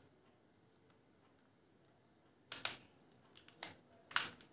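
Several short plastic clicks and knocks as a 12V cordless drill's plastic body is handled, in the second half; the motor is not running.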